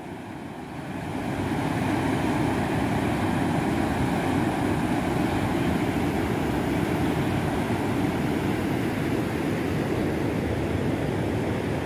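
Flooded river running high after heavy rain: muddy floodwater rushing past the bank in a steady noise of running water. The noise swells about a second in and then holds level.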